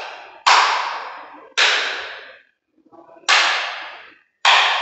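Switches on a lamp-bank load panel being snapped off one at a time, cutting the lamp load. Four loud, sharp clicks, each ringing out for about a second.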